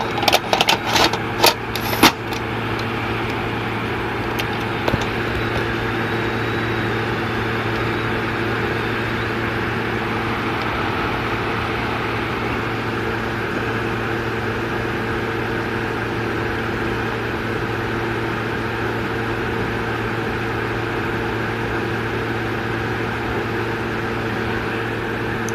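Victor HR-S10 portable video cassette recorder's mechanism: a quick series of sharp clicks in the first two seconds, then a steady mechanical hum as the tape runs.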